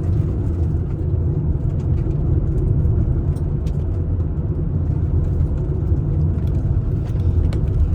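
Steady road and engine rumble inside a moving vehicle's cabin, heard at cruising speed.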